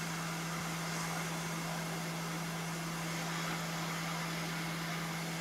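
Hot air rework station blowing steadily: an even hiss of air over a constant low hum.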